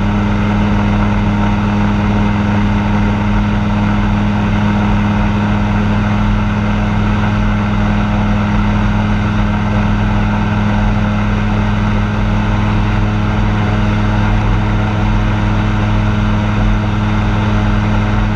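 Light aircraft's piston engine and propeller running steadily in flight, heard from inside the closed cockpit as a constant low hum that holds one pitch throughout.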